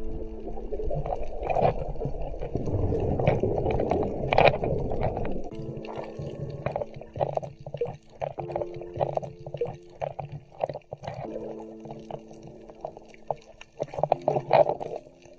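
Water rushing and gurgling over an underwater camera housing, loudest for the first five seconds, then dropping to a fainter crackle, under background music of long held chords.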